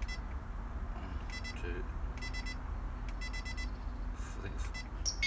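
Prologic SMX bite alarm giving about four short, high-pitched electronic beeps a second or so apart as its buttons are pressed to step through its settings.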